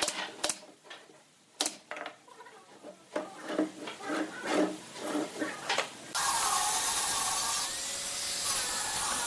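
Pneumatic brad nailer firing into pine slats, a few sharp shots in the first two seconds, then the wooden crate knocking and rubbing as it is handled. About six seconds in, a steady, louder hiss cuts in abruptly.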